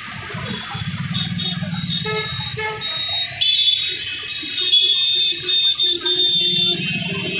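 Vehicle horns honking repeatedly in slow, jammed city traffic, high-pitched beeps that overlap, starting about a second in and loudest about halfway through. A motorcycle engine runs low underneath.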